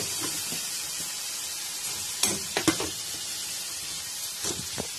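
Red chilli sauce sizzling steadily in a kadai as fried chicken pieces are added, with a few short knocks about two seconds in and again near the end.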